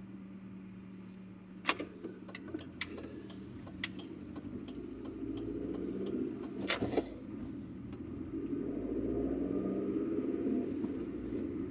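Car interior while driving: steady engine hum and road rumble that grow louder in the second half as the car gathers speed, with a scatter of sharp clicks and rattles in the first half.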